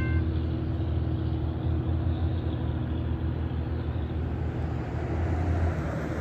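Heavy diesel engine running steadily, a low droning hum with even engine noise over it.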